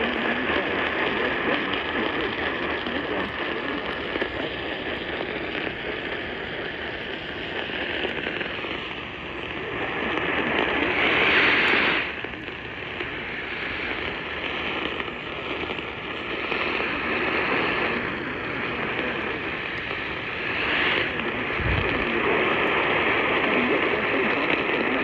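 Static hiss from a weather radio receiver tuned to a weak NOAA Weather Radio signal, the broadcast lost in the noise. The hiss swells louder about ten seconds in and drops off suddenly around twelve seconds.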